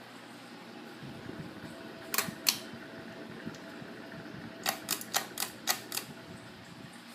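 Hunter Biltmore 52-inch ceiling fan running with a low steady hum, its bearings in poor shape. Over it come sharp clicks: two together about two seconds in, then a quicker run of about six near the end.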